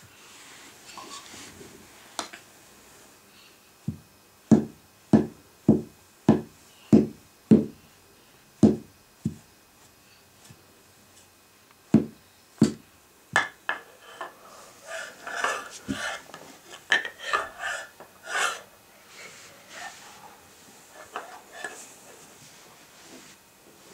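A baby knocking a lacquered wooden bowl and lid against the floor and each other: a steady run of about nine sharp wooden knocks, two more a few seconds later, then a busier stretch of lighter clattering.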